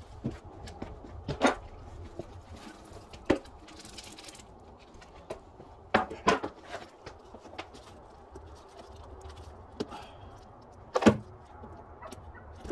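Scattered knocks and clinks of hand tools and engine parts being handled while the top of the engine is put back together, about five sharp ones, the loudest near the end.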